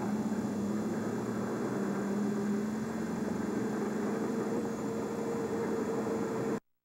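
A vehicle engine idling with a steady hum, cutting off abruptly near the end.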